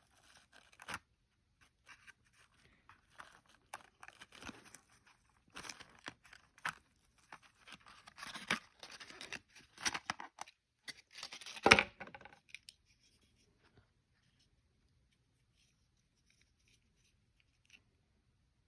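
Model train packaging handled and pulled open: irregular crinkling, scraping and tearing, with one sharp knock at about twelve seconds, stopping about two-thirds of the way through.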